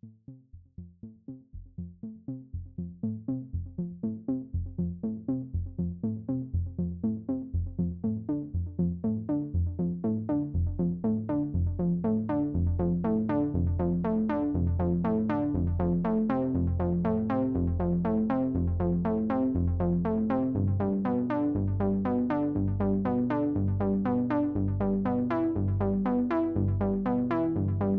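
AIR Vacuum Pro virtual analog synthesizer playing a fast sequenced pattern of short, repeating notes over a deep bass line. It grows louder over the first dozen seconds, then holds steady.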